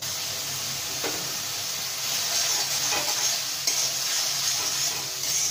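A spice paste of onion, ginger-garlic and chilli sizzling steadily in hot oil in a pan while a spatula stirs and scrapes through it, with a few light knocks of the spatula against the pan. The masala is being fried down (kosha) with a splash of water until the oil separates.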